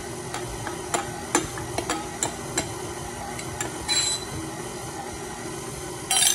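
Tilt-head stand mixer running at low speed with a steady motor hum, its flat beater creaming cream cheese, butter and powdered sugar into icing. Scattered light clicks and taps run through it, with a louder clatter near the end.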